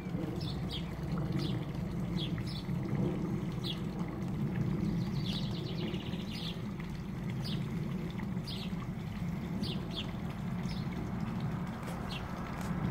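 Small birds chirping over and over, short high chirps about once a second, over a steady low rumble.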